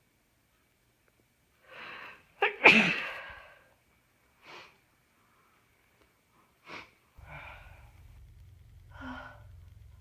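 A woman with a congested head cold sneezes once, loudly, about two and a half seconds in, after a short in-breath. Short breaths follow, and a low steady rumble comes in near the end.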